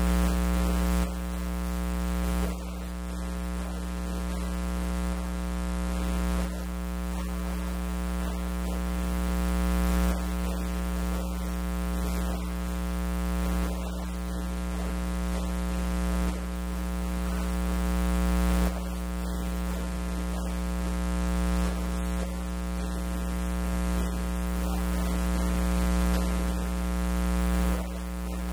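Steady electrical hum with many overtones and no speech. Its level slowly swells and then drops back suddenly every few seconds.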